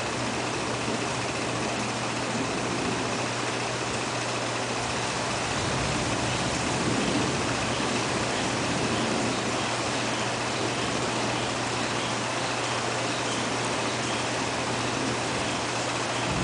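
Steady rain during a thunderstorm, with a steady low hum beneath it. A low rumble of thunder swells about six seconds in.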